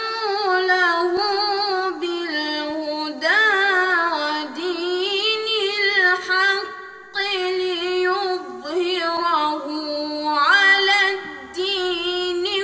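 A boy's high voice reciting the Quran in melodic tajweed style, drawing out long, ornamented, wavering notes. There are two short breaks, about seven and about eleven seconds in.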